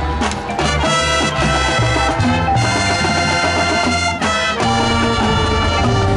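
Marching band playing: sustained brass chords with drum accents.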